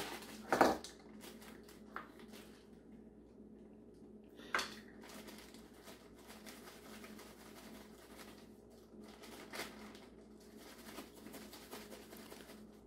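A plastic zip-top bag of soil being handled: a loud thump about half a second in, then faint plastic rustling with a few light knocks.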